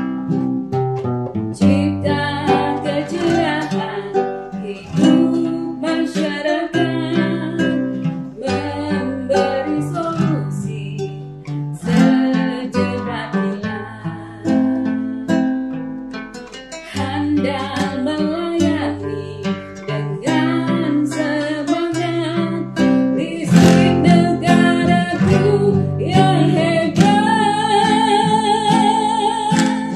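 A woman singing a song over acoustic guitar accompaniment, the guitar plucked and strummed.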